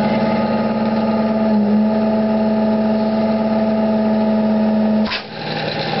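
1915 Arco Wand Model 361 central vacuum's one-horsepower motor and blower running under strain, with the intake blocked and the relief valve held shut, a steady hum that pushes the motor toward a stall. About five seconds in, a short rush of noise and the hum drops to a lower pitch as the valve is let go.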